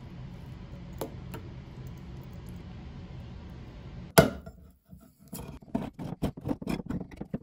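A low steady hum, then about four seconds in a sharp loud snap as a hand-held can opener bites into a tin can's lid. A run of short clicking, crunching strokes follows as its key is turned to cut around the rim.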